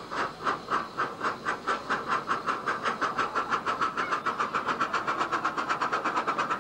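Miniature steam locomotive working hard from the driver's seat, its exhaust beats quickening from about four to about eight a second as it picks up speed.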